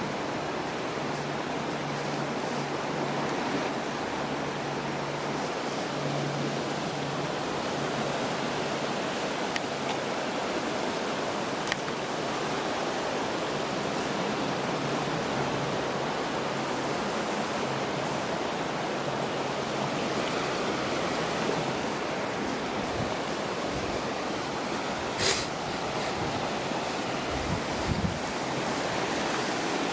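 The flooded River Axe rushing steadily, a constant noise of fast, turbulent floodwater. A brief sharp click comes about 25 seconds in, and a few low thumps follow near the end.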